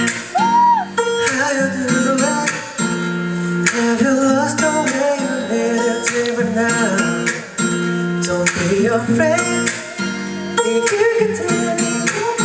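Intro of a pop song: strummed acoustic guitar chords in a steady rhythm, with a voice faintly in the mix.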